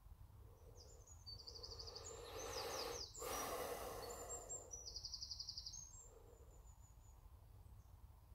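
Faint birdsong of high rapid trills and short chirps, with a person breathing in and then out close to the microphone about two to four seconds in.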